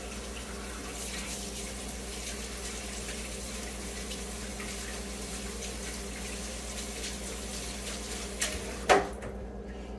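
Melted soy wax pouring from a metal melting pot into a glass candle jar, a steady trickling stream. Near the end the pour stops with a sharp knock of the pot. A low steady hum runs underneath.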